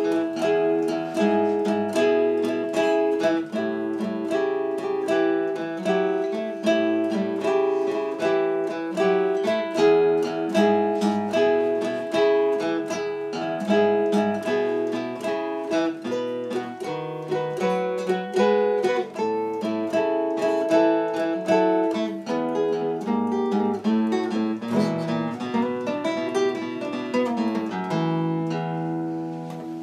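Two acoustic guitars playing a blues duet without vocals: a nylon-string classical guitar and a steel-string cutaway acoustic, picked and strummed together. Near the end the playing thins to a held, ringing chord.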